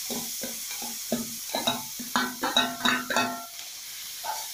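A steel spoon tapping and scraping against a steel plate: about a dozen ringing metallic clinks that come faster toward the middle and stop about three and a half seconds in, knocking the last of the chopped onion and tomato into the pan. A low frying sizzle runs underneath.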